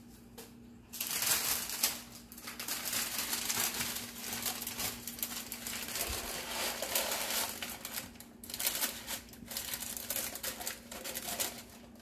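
Parchment paper crinkling and rustling as it is handled with bread dough on it and lowered into a Dutch oven. The crackle starts suddenly about a second in and goes on unevenly until near the end, over a faint steady low hum.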